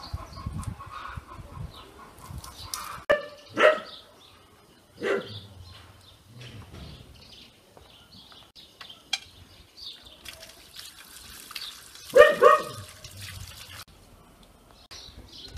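Farmyard animal sounds: a few loud pitched calls, about three and a half, five and twelve seconds in, over small birds chirping.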